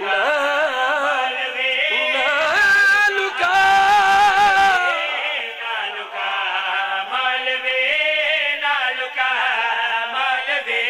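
Male voices chanting a Punjabi qaseeda in long, drawn-out, wavering notes, with the highest note held from about two and a half to five seconds in.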